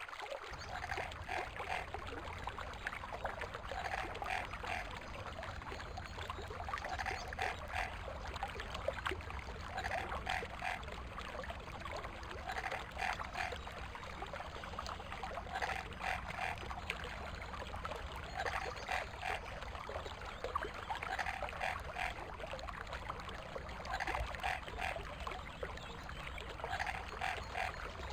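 A frog calling in short pulsed phrases, one phrase about every three seconds, over the steady rush of a forest stream.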